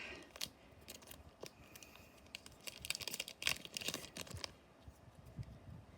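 A foil trading-card booster pack crinkling and being torn open by hand, a string of soft crackles and clicks that is busiest about three to four seconds in.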